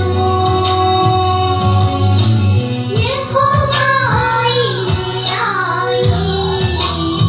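Two young girls singing a Christian devotional song through microphones over amplified instrumental backing with sustained bass notes and a steady beat.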